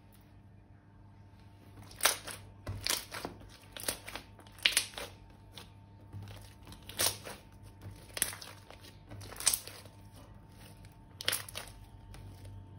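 Crinkling, crunching handling sounds from slime-making materials worked by hand: about ten short, sharp crackles in irregular bursts, starting about two seconds in, over a faint steady hum.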